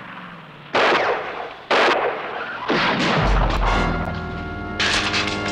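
Rifle gunshots in a TV-drama soundtrack: two loud shots about a second apart, then a third softer one. About three seconds in, dramatic brass-led orchestral music comes in, with one more sharp hit near the end.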